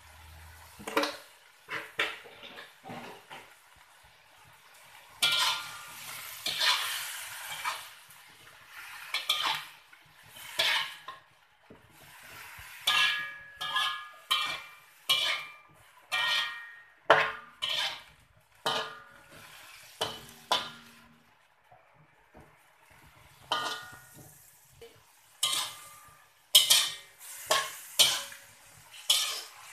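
A metal spatula scraping and knocking against a metal wok as vegetables are stir-fried, in irregular strokes and runs of strokes with pauses between. The wok rings briefly after the sharper knocks.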